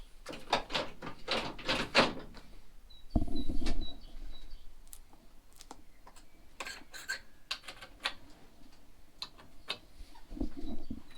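Irregular sharp clicks and knocks, with a louder scraping stretch about three seconds in. A bird chirps in short, quickly repeated high notes about three seconds in and again near the end.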